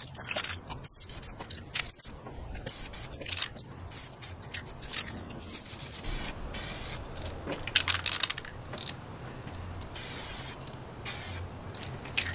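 Aerosol spray-paint can hissing in repeated bursts: many short sprays, with a few longer ones of about half a second to a second in the second half.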